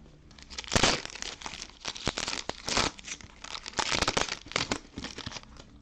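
Cellophane wrapper of a trading-card cello pack being torn open and crinkled: irregular crackling, loudest about a second in.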